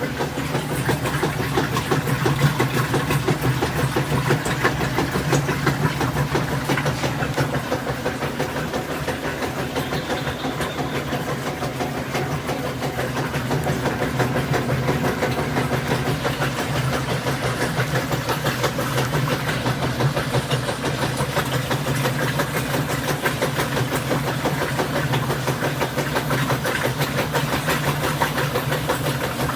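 Washing machine running in its rinse cycle: a steady motor hum with a fast, even pulsing.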